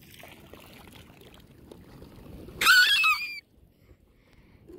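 A bird gives one shrill call with a wavering, gliding pitch, under a second long, about two and a half seconds in, over a faint hiss. The sound cuts off abruptly just after.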